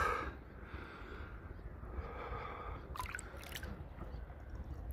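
A swimmer breathing hard, a breathy exhale at the start, with a few small splashes and drips of sea water about three seconds in, over a low steady rumble of water and wind at the microphone.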